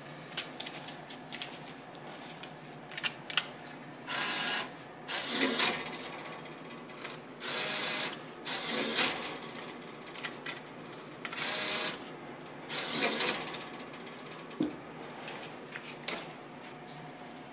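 Robocoin bitcoin kiosk's bill acceptor whirring in short bursts, about six times, as it draws in dollar bills.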